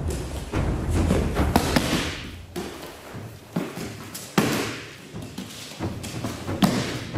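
Several heavy thuds of aikido partners being thrown and landing on the tatami mat, the loudest about four and a half seconds in and again near the end, over background music with drums.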